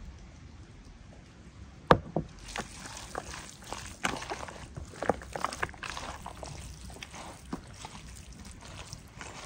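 Hands squeezing and mixing raw beef chunks with sliced onions and oil in a plastic bowl: irregular wet squelching and crackling. A sharp knock about two seconds in is the loudest sound.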